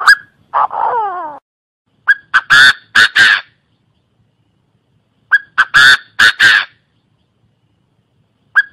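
Chinese francolin calling: two loud, harsh phrases of about five notes each, with a third starting right at the end. This is the male's call, played as a trapping lure. Near the start there is a click and a short call that falls in pitch.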